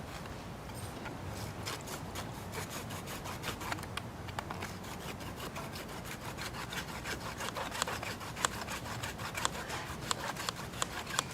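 Small handsaw cutting through a PVC water main pipe by hand, quick back-and-forth rasping strokes, several a second. The blade is dull and cutting slowly.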